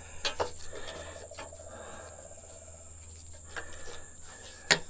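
Steady high-pitched drone of crickets, with a few scattered light clicks and knocks and one sharper click near the end.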